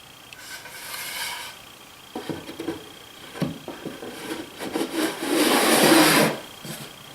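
Wood rubbing and sliding against wood in a solid wooden toolbox as it is handled, with a short squeaky rub near the start and a few knocks. A longer, louder rub comes about five to six seconds in.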